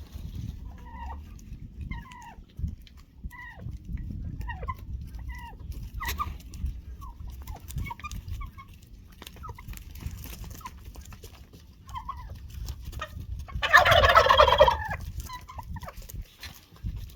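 Farm poultry calling: a run of short, repeated calls, then one loud call lasting about a second near the end.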